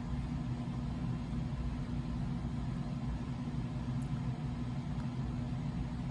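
Steady low mechanical hum holding one pitch, like a motor or appliance running.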